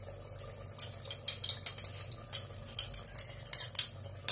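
Metal bowl clinking and scraping against the rim of an aluminium pressure cooker as rinsed ground masala is tipped into the mutton: a run of sharp clinks starting about a second in and growing busier toward the end.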